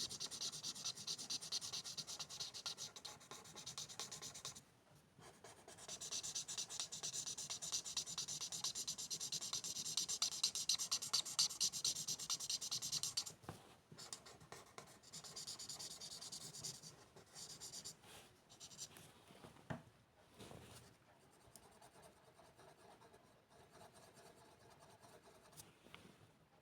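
A pen scribbling on paper in fast back-and-forth strokes, as in colouring in. It pauses briefly near five seconds, stops about halfway through, and only quieter, scattered scratching and paper rustling follow.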